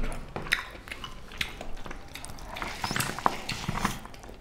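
Eating by hand: scattered soft clicks and smacks of fingers working rice and pork curry on a plate, with chewing and lip smacks.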